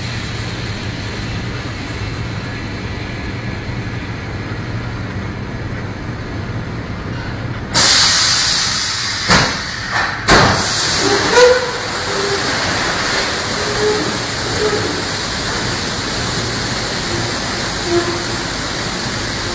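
Coal being dumped out of the bottom of a loaded railroad hopper car at an unloading station. A steady machinery hum runs until about eight seconds in, when a sudden loud rush of noise begins. Sharp knocks and short metallic squeals follow while the car empties.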